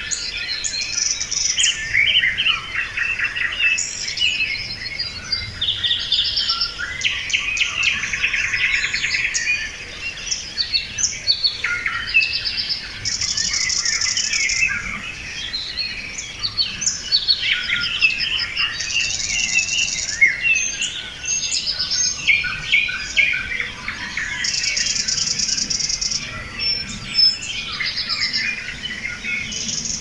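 A busy chorus of small songbirds chirping and twittering over one another, with a high buzzy trill repeating about every five or six seconds.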